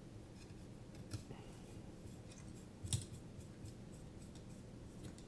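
Faint, scattered clicks and light taps of screws and a hand screwdriver on a carbon-fibre drone frame as it is screwed together by hand, the sharpest knock about three seconds in.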